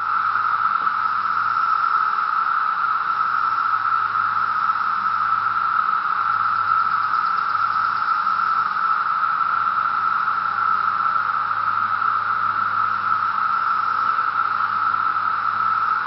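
Massed chorus of thousands of 17-year periodical cicadas singing together in the trees: one steady, unbroken, unbelievably loud drone that holds a single even pitch throughout.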